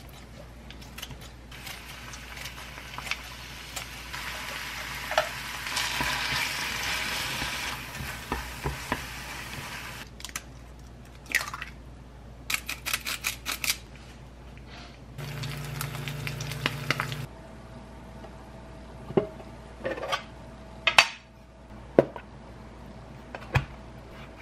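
Chopped kimchi sizzling as it fries in oil in a pan, with tongs and utensils clinking. Then a run of sharp clicks, a brief low hum, and scattered knocks of cookware and a metal lunchbox being handled.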